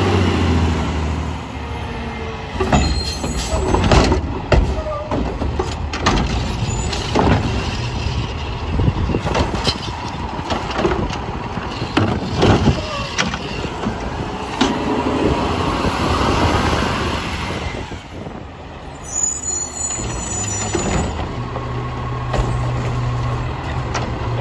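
Autocar WXLL front-load garbage truck with a McNeilus Pacific body and Curotto Can at work: engine running, with a long run of loud bangs and clanks from the body and lifting gear, and a hiss of the air brakes about three quarters of the way through.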